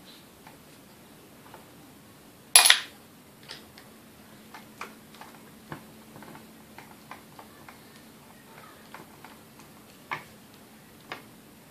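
Small clicks and clinks of hand tools and small metal parts being worked at the motor end of a vintage Sunbeam Mixmaster, with one louder clatter about two and a half seconds in and two sharper clinks near the end.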